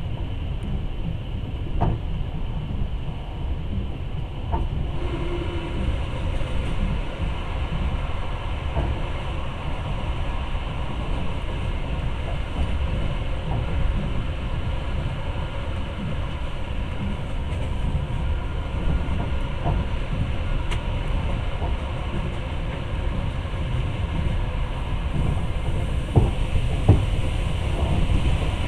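Long-distance passenger train running on the rails, heard from inside the carriage: a steady low rumble of wheels and running gear, with occasional sharp knocks, two louder ones near the end.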